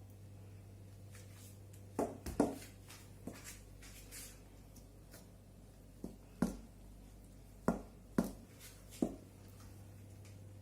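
A spoon or fork knocking against a mixing bowl about eight times at irregular intervals while flour is stirred into sponge-cake batter, over a low steady hum.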